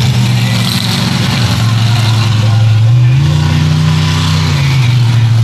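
Monster truck's V8 engine running loud, its pitch dipping about a second and a half in, revving up about three seconds in and dropping back a second later.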